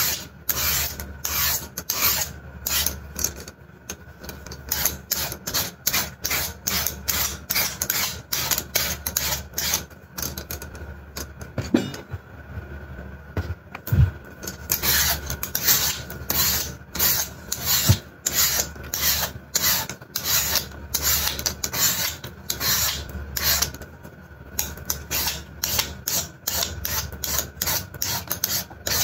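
Vegetable peeler scraping the skin off a raw sweet potato in quick, repeated strokes. The strokes stop for a couple of seconds near the middle, and a single dull knock comes just after them.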